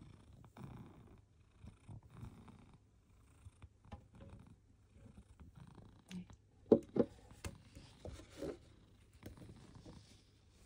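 Domestic cat purring close to the microphone, a low rough rumble rising and falling with its breaths. A few brief sharp clicks stand out about seven seconds in.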